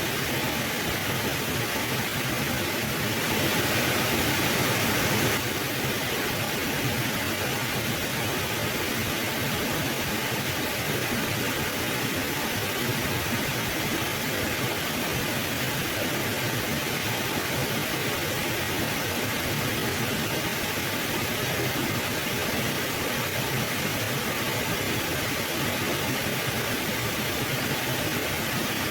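Mountain river flowing: a steady rush of water, a little louder for about two seconds a few seconds in.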